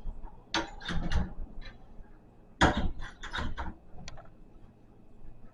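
Clicks and knocks of hard plastic game-console accessories being handled and fitted together. They come in two short clusters, about a second in and again around three seconds in.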